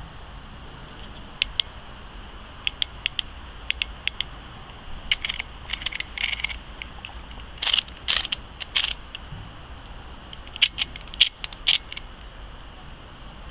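Handling noise: irregular small sharp clicks and light rattles, some in quick clusters, over a steady background hiss.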